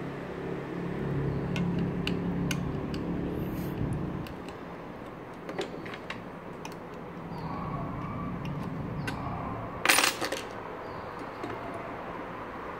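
Plastic and metal parts clicking and knocking as a plastic mounting bracket is handled and fitted onto a solar CCTV camera housing: scattered light clicks, with one louder clatter about ten seconds in.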